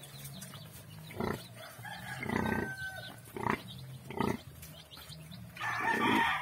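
Nursing piglets squealing in several short bursts, the longest and loudest near the end. Under them runs a low, steady, pulsing grunting from the suckling sow.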